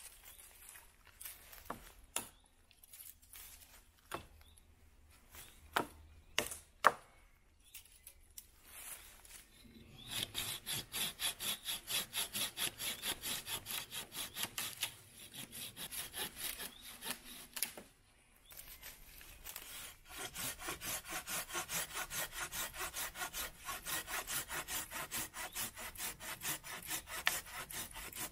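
Wood being sawn with fast, even back-and-forth strokes, about four a second, in two long runs with a short break between. Before the sawing starts, a few scattered sharp knocks and clicks.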